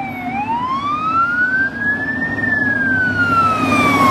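Responding fire apparatus siren on a slow wail: the tone bottoms out just after the start, rises for about two seconds, then begins to fall again. Under it a heavy truck engine rumbles, growing louder near the end as the fire engine comes close.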